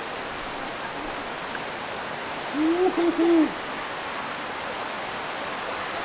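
Steady rush of a mountain creek. About halfway through, a person near the microphone makes a brief wordless vocal sound of three quick low notes.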